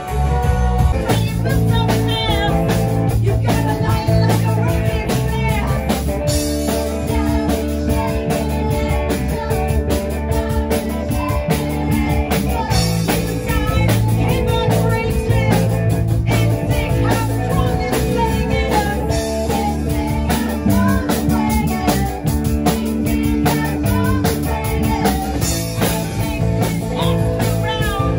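Live rock band playing: electric guitars and drums, with vocals.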